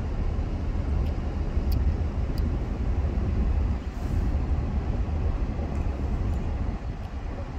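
Car driving along a road, heard from inside the cabin: a steady, deep rumble of engine and tyre noise.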